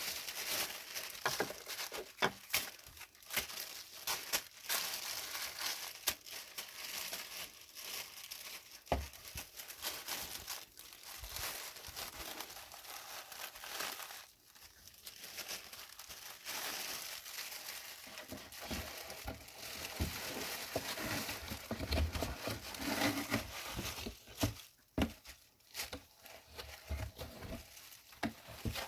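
Packaging being handled and crumpled, a continuous crinkling and rustling dotted with small clicks and knocks.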